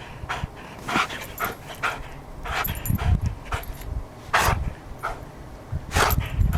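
Greyhound panting in heavy, irregular breaths, about two a second, with a few low thuds in between.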